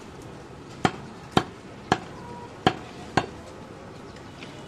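Large butcher's knife chopping through goat liver and striking a round wooden chopping block: five sharp knocks about half a second apart, stopping a little past the middle.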